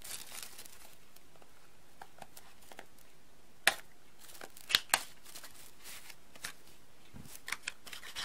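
Clear tape and wrapping being cut with a fixed-blade knife and peeled off a small cardboard knife box, with faint rustling. Several sharp clicks and snaps come through, the loudest a little past halfway.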